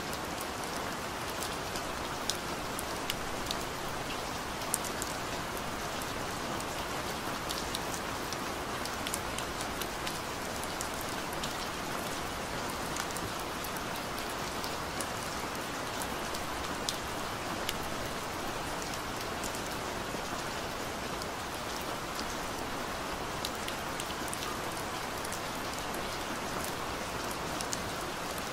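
Steady rain falling, an even hiss dotted with many sharp ticks of single drops landing.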